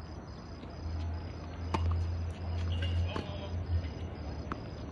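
Tennis balls struck by rackets in a rally: a sharp pop of the serve about two seconds in, then two fainter hits about a second and a half apart, over a low rumble that swells in the first half.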